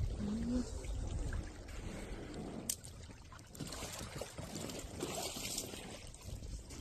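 Water trickling and lapping, with low wind rumble on the microphone near the start and a single sharp click under three seconds in.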